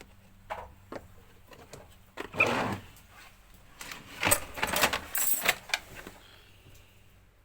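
Irregular clicks and knocks, with two louder bouts of rattling and clattering, about two seconds in and again about four seconds in.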